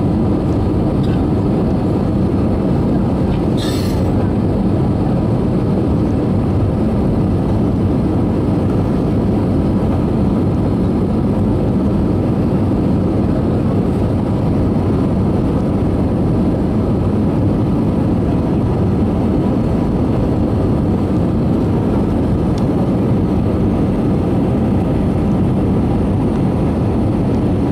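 Airbus A320 cabin noise on the landing approach: the jet engines and rushing airflow make a steady, even low rumble.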